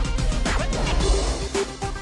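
Dramatic trailer music with a heavy deep bass and hits; the bass drops away about three-quarters of the way in, leaving a lighter repeating figure.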